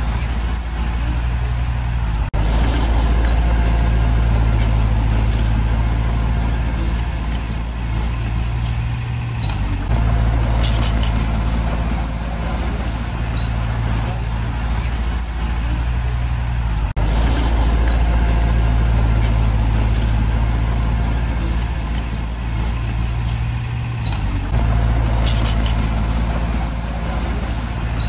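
Heavy diesel earthmoving machinery running under load: a deep, steady engine drone that eases off briefly twice, with an intermittent high, thin whine over it.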